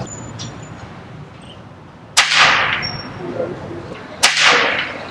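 Two shots from a suppressed Benjamin air rifle, about two seconds apart. Each is a sharp crack that tails off over about half a second.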